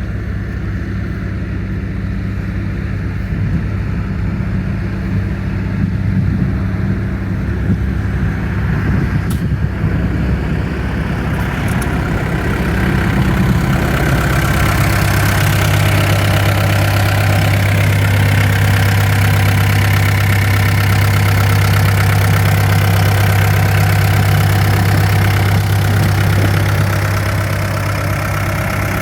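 John Deere hydraulic excavator's Yanmar diesel engine running steadily at idle. About halfway through it speeds up a little and holds there, louder.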